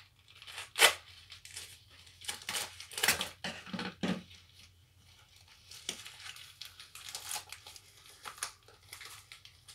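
A small packet being torn and crinkled open by hand. There is one sharp rip about a second in, a flurry of tearing between about two and four seconds, then lighter crinkling.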